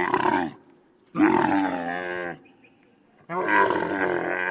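European elk (moose) calls made from layered moose, bull and camel recordings: a call that ends about half a second in, a second call just over a second long whose pitch falls near its end, and a third that starts a little after three seconds and carries on.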